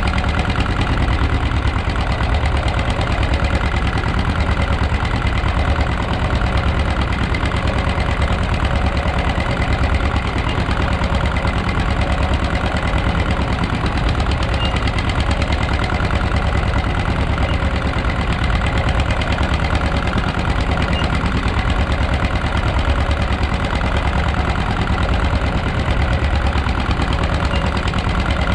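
Fishing boat's engine running steadily with an even knocking beat while the deck capstan winch hauls in a fish-trap line.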